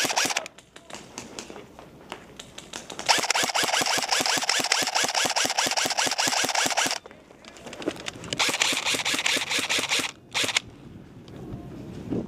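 Airsoft electric rifles firing long full-auto bursts: a rapid, even stream of sharp clicks. One burst runs about four seconds starting about three seconds in, and a shorter one comes near the two-thirds mark.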